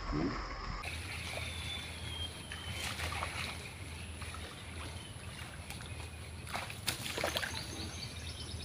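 Water splashing a few times over a steady outdoor background with a faint high call. The sharpest splashes come about three seconds in and again near the end, which fits a hooked fish thrashing at the surface as it is landed.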